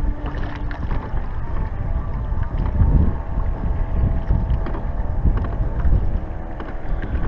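Wind buffeting the microphone in uneven gusts over choppy lake water lapping around a small aluminium fishing boat, with a faint steady hum underneath.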